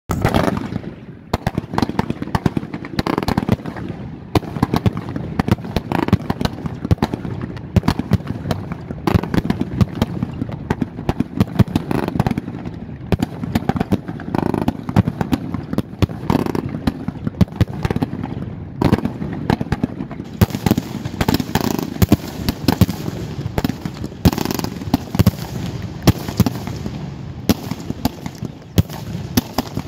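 Consumer fireworks cakes and mines firing in a continuous barrage. Sharp launch thumps and bangs follow one another many times a second, with no pause.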